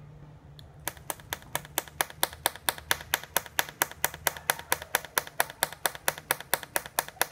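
TIG welder fitted with an automatic pulse board, pulsing fast in sharp, evenly spaced clicks about five a second over a steady low hum, starting about a second in.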